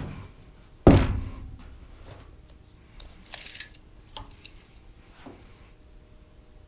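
Wooden 2x4 frame set down on a wooden work table with one loud thunk about a second in, followed by a few light knocks and a short rasp like a tape measure being pulled out.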